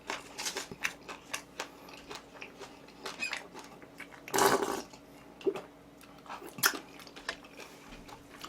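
Close-miked chewing and biting of food: irregular wet clicks and smacks, with a louder, longer crunch or slurp about four seconds in and a shorter one near the end.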